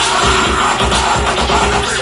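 Electronic music with a steady bass beat, played over Bluetooth through a 5.1-channel soundbar home theater system with subwoofer.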